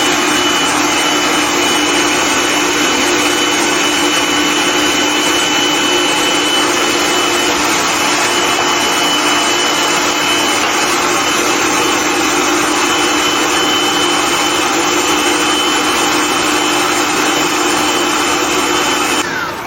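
Food processor running steadily at full speed, chopping baked egg yolks: a constant motor noise with a steady tone. It cuts off suddenly near the end.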